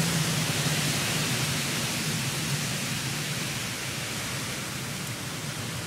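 Storm wind and rain making a steady rushing hiss that slowly eases.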